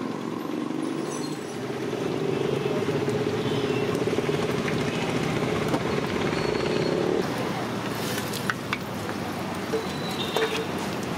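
A motor engine running nearby with a steady buzzing note, which stops suddenly about seven seconds in, over the hiss of okra and chilli bajjis frying in a kadai of hot oil. A few light metal clinks near the end as a perforated skimmer stirs the oil.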